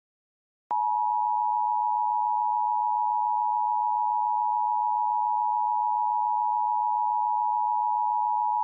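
Emergency Alert System attention signal: the two-tone 853 Hz and 960 Hz alert tone from a DASDEC-II encoder, starting under a second in and held steady for about eight seconds before cutting off, following the SAME header data bursts and announcing the spoken warning.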